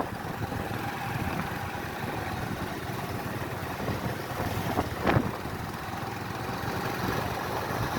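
Motorcycle engine running steadily while riding, with one short sharp knock about five seconds in.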